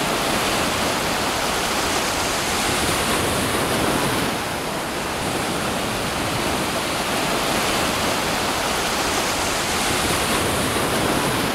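Ocean surf washing onto a sandy beach: a steady rush of breaking waves that eases a little about five seconds in.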